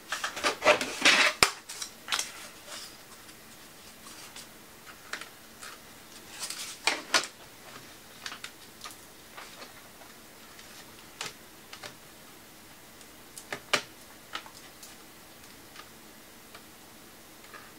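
Small clicks and taps from hands handling plastic laptop parts and thin wires inside an open laptop chassis: a quick run of them in the first second and a half, then scattered single ticks.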